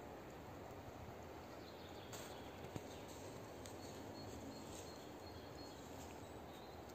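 Faint outdoor ambience: an even low hiss with a couple of soft clicks.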